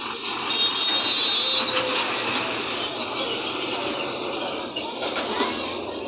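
Congested road traffic at a railway level crossing: truck engines running close by as trucks creep through, with a brief high-pitched tone about a second in.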